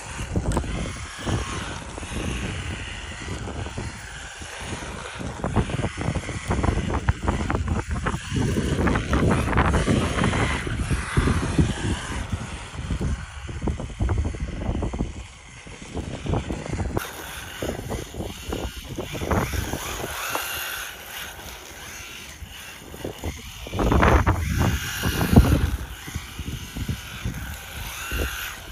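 Small electric motor of an SCY 16303 RC drift car whining as it accelerates and slides on asphalt, rising and falling in pitch with the throttle. An uneven low rumble of wind on the microphone runs underneath.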